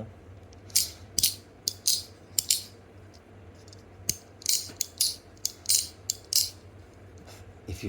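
Handheld fidget toy being worked by hand: a string of sharp, irregular clicks, with a pause of about a second halfway through.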